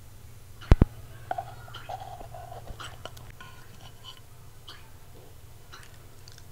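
A sharp double knock as the plate of skewers is set down on the table beside the clip-on microphone, then a West Highland terrier's short whine. Soft clicks and mouth sounds follow as it bites at a skewer of grilled Brussels sprouts.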